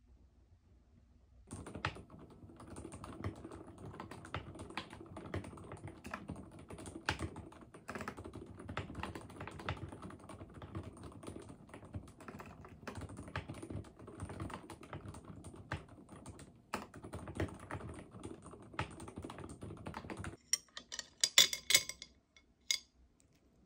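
Fast, continuous typing on a mechanical keyboard, clattering keystrokes. It stops just after 20 seconds, and is followed by a few louder, sharp clinks near the end.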